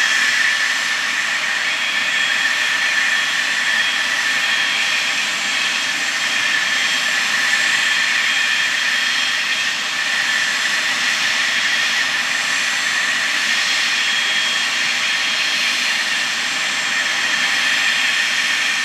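Boeing 777-9's GE9X turbofan engines running steadily: a high, even fan whine over a broad rush of jet noise.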